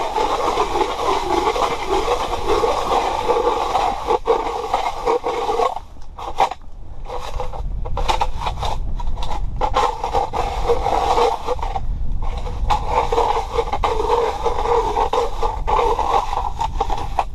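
Power ice auger grinding and scraping as it drills through lake ice, with a couple of brief pauses partway through.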